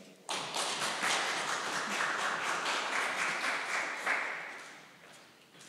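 Audience applauding: many hands clapping at once, starting suddenly and fading away over the last second or so.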